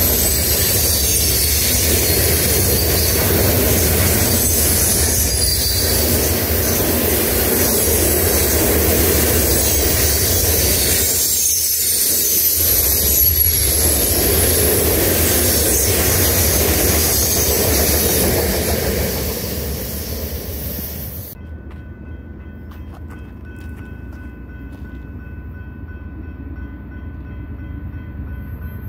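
Freight train of covered hopper cars rolling past close by: steady rumble and clatter of steel wheels on rail, with high-pitched wheel squeals. About 21 seconds in it gives way abruptly to a much quieter low hum with a few faint steady tones.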